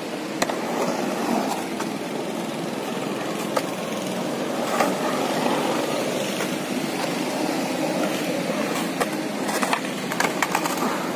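Skateboard wheels rolling on a concrete bowl, a steady grinding rumble broken by a few sharp clacks of the board. Near the end a cluster of clacks and knocks as the rider falls and the board comes loose.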